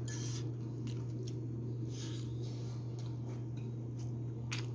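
Metal spoon scraping up kimchi fried rice from a grill plate near the start, then a few brief soft scrapes and clicks of eating, over a steady low hum.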